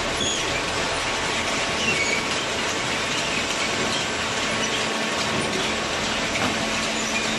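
Hydraulic cardboard baler running with a steady mechanical din and a few faint high squeaks.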